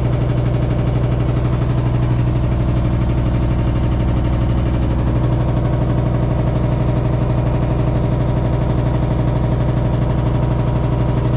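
Hitachi SF-150TCV 15 kg washing machine on its spin cycle, giving a loud, steady droning hum with a fast buzzing rattle from inside the tub. The owner thinks the noise is not normal and suspects the shaft is off-centre or not locked tight, so the tub wobbles as it spins.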